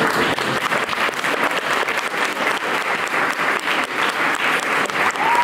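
Audience applauding: a dense, steady patter of many people clapping at once in a large hall.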